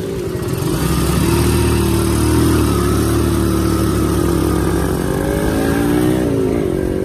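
Small motorcycle engine of a passenger tricycle running steadily under way, heard from the passenger seat, its pitch dipping and then rising again about six seconds in as the driver eases off and speeds up.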